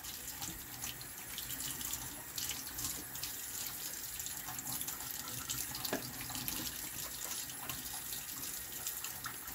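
Kitchen faucet running steadily, water splashing off a plastic model boxcar shell held under the stream and into a stainless steel sink, with small irregular ticks as fingers rub the car. The car is being rinsed of scouring-cleanser residue.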